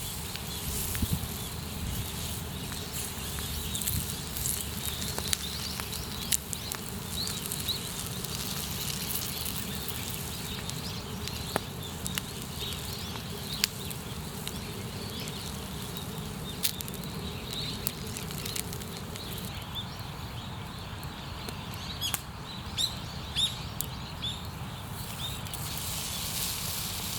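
Campfire crackling, with scattered sharp pops over a steady low rush and a brief cluster of louder pops about twenty-two seconds in.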